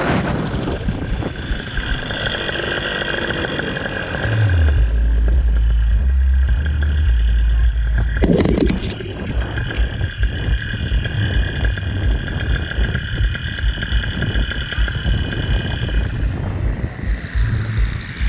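Paramotor engine and propeller running steadily, with heavy wind rumble on the microphone starting about four seconds in.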